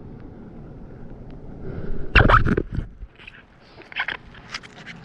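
A short, loud scraping rush about two seconds in, followed by a few light clicks and knocks, over a low steady rumble.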